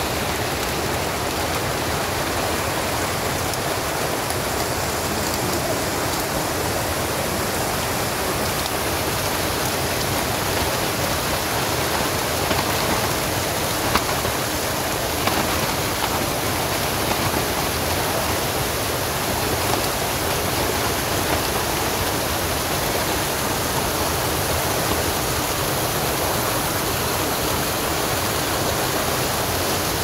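Steady rushing noise of water, with a few faint ticks a little before halfway.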